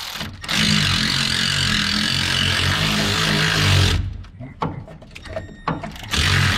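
Cordless electric ratchet running steadily as it spins out an 8 mm bolt holding the fuel pump control module to the frame. About four seconds in it stops and starts in several short bursts, then runs steadily again near the end.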